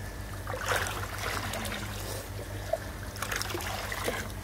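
Water trickling and splashing in irregular spurts, three or so in a row, over a steady low hum.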